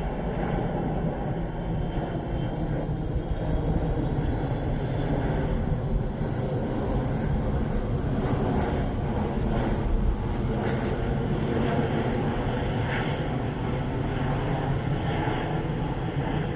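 Steady jet noise of an Airbus A330-243 with its Rolls-Royce Trent 700 turbofans, flying low on final approach with the landing gear down.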